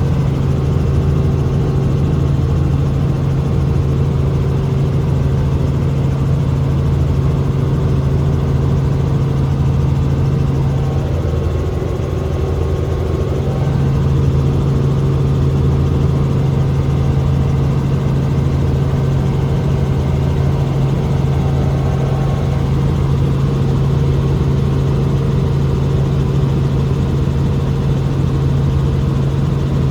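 Helicopter in flight heard from inside the cabin: a loud, steady drone of engine and rotors with a strong low hum over a slow, even pulsing. It eases slightly about twelve seconds in.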